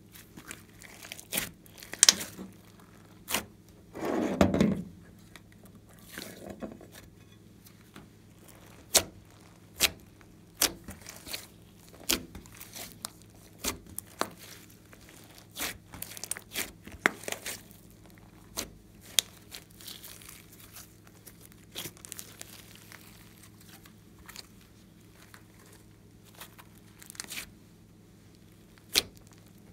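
Glossy slime being stretched, squeezed and folded by hand: irregular sharp clicks and pops as the sticky slime snaps and air pockets burst, with one louder, longer squelch about four seconds in.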